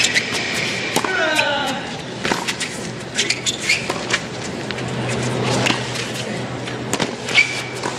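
Tennis rally on a hard court: sharp knocks of racket strokes and ball bounces trading back and forth, with short sneaker squeaks on the court surface. A player's short grunt comes about a second in.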